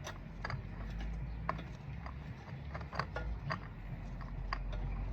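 Irregular light clicks and taps of hands working a new spin-on oil filter onto the engine, roughly one every half second.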